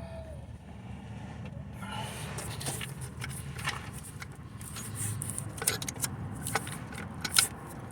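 Metal hand tools clinking and scraping against the engine's metal parts: several sharp, separate clinks, the loudest near the end, over a low steady hum.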